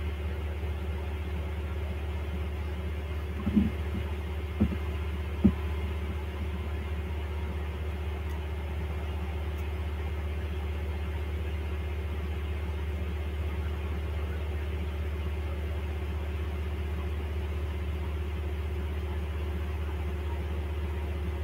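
A steady low hum with a few faint steady tones above it, broken by three short knocks between about three and a half and five and a half seconds in.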